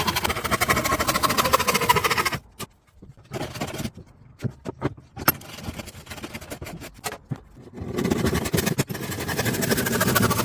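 An electric woodworking power tool runs loudly for the first couple of seconds and then stops. Several seconds of scattered knocks and clicks from wood and tools being handled follow. The tool runs again from about eight seconds in.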